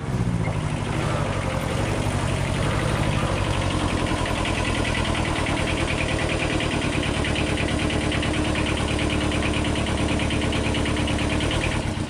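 Kubota B5100E sub-compact tractor's two-cylinder diesel engine idling steadily with an even, fast throb.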